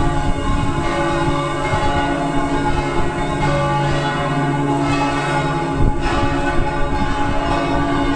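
Several church bells ringing together, their struck tones overlapping and sustaining, with repeated strikes throughout.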